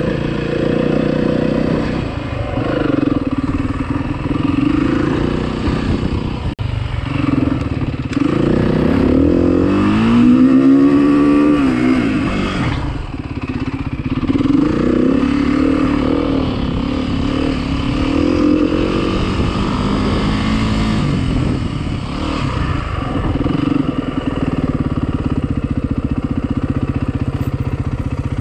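Dirt bike engine heard from on the bike while riding sandy trails, its pitch rising and falling as the throttle opens and closes. About eight seconds in it revs up in a long rising pull, then drops back about four seconds later.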